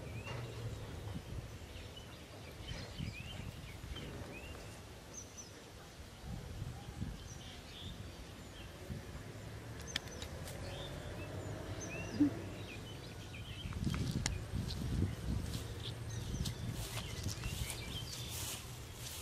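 Small birds chirping now and then in short calls over a low steady background rumble, with a few sharp clicks in the second half.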